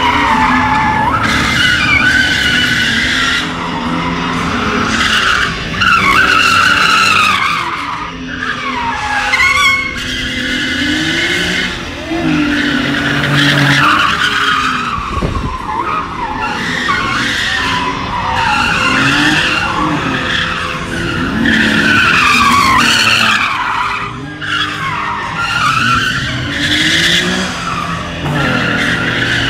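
Nissan 370Z's 3.7-litre V6 revving hard as its rear tyres squeal through continuous donuts. The squeal rises and falls in pitch as the car circles, and the engine note swells and drops with the throttle.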